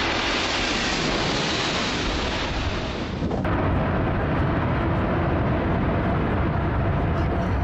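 Loud, steady jet engine noise of a twin-engine airliner passing low overhead on its landing approach. About three and a half seconds in the sound changes abruptly to the jet on the runway after touchdown, its engines still loud and steady.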